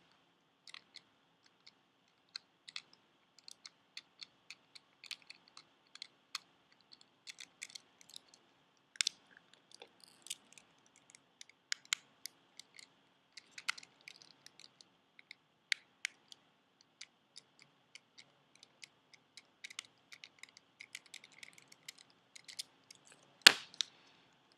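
Scattered small clicks and ticks of a Swift Point mouse's plastic case being worked open by hand, with one much louder click near the end.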